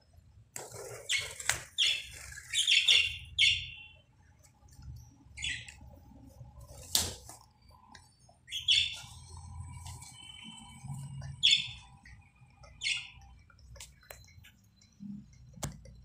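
Pet budgerigars chirping in short, high bursts every few seconds, with a few sharp clicks in between.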